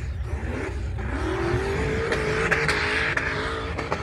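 Rock racing buggy's engine revving up about a second in and then held at high revs, with a few sharp knocks over the steady rush.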